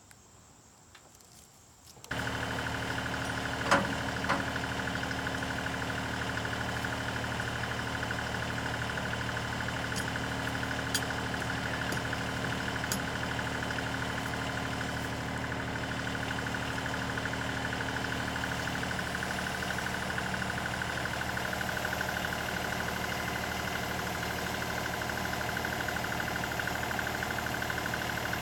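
LS XR3135 compact tractor's diesel engine running steadily. It comes in abruptly about two seconds in after near silence, with a couple of sharp clanks shortly after.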